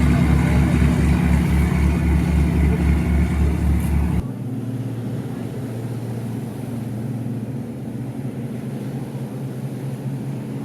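Motorboat engine running steadily with an even low pulsing. About four seconds in it cuts abruptly to a quieter, steady low engine hum.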